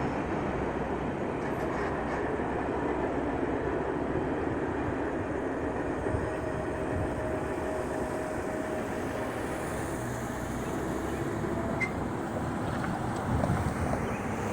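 A train rolling past on the rails, a steady rumble and clatter of the cars, with a faint thin steady tone for a few seconds in the middle.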